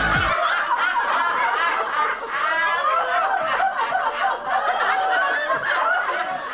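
A group of women laughing together, several voices overlapping throughout. A burst of dance music with a heavy beat cuts off just at the start.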